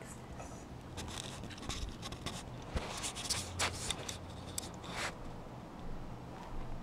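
Soft irregular scratching and rubbing, with a run of short scrapes and clicks in the middle.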